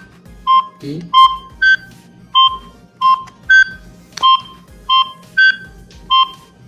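Secutech cordless phone handset sounding its paging ring through its repaired speaker: a tune of short electronic beeps, about two a second, stepping between a few pitches. The ringer, silent since the phone was dropped, now works.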